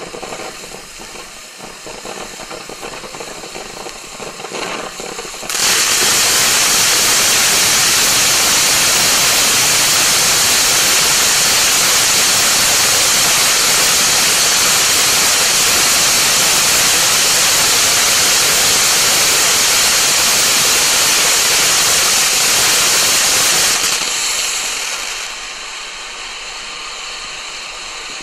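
Snow Cone fireworks fountain burning. A quieter, uneven spitting start gives way about five seconds in to a sudden loud, steady hiss of spraying sparks, which eases to a quieter hiss near the end.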